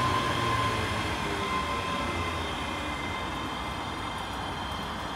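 Electric passenger train running past, with a steady motor whine and rumble that fade away as it draws off.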